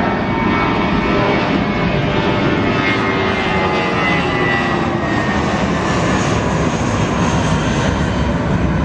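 Airbus A320-family jet airliner climbing out overhead just after take-off: a loud, steady jet engine rumble with faint whining tones that slowly fall in pitch as it passes.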